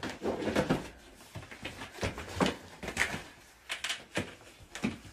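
Irregular light knocks and scuffles from a ginger kitten scrambling and playing on foam floor mats beside a fabric playpen.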